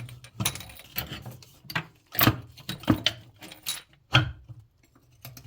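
Wire cutters clicking and knocking against a stuck sink drain fitting as they are worked and squeezed on it, about ten irregular sharp clicks.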